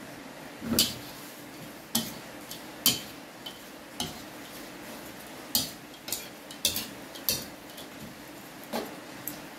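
Metal spatula scraping and clanking against a steel wok while dry-roasting a wokful of grasshoppers, about a dozen sharp knocks at uneven intervals over a steady faint hiss.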